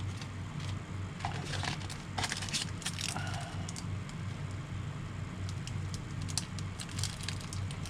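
Crinkling and clicking of plastic lure packaging being handled, in scattered bursts over a steady low hum.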